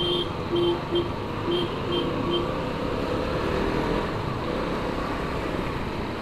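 A vehicle horn sounding in about six short beeps over the first two and a half seconds, over the steady running of a KTM Duke 125 motorcycle and traffic noise.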